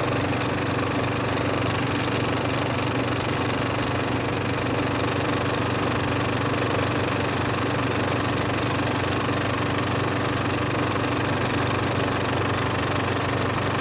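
Film projector running: a steady mechanical whirr with a low hum and a fine, even clatter.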